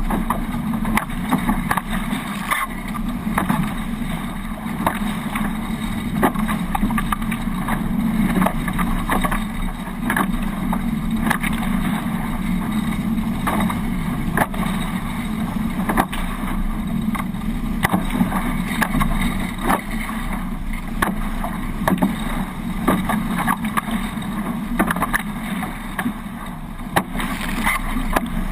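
A Hobie 18 catamaran under sail, giving a steady rush of wind and water, broken by frequent short sharp slaps.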